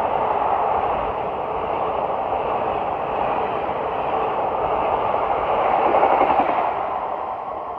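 Indian Railways express train passing at high speed: a steady rush of wheel and rail noise that swells a little and then begins to die away near the end.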